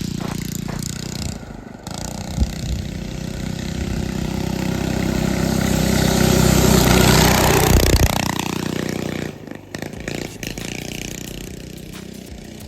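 Go-kart engine with a torque converter running as the kart drives past. It grows louder as it approaches, drops in pitch about eight seconds in, then fades away.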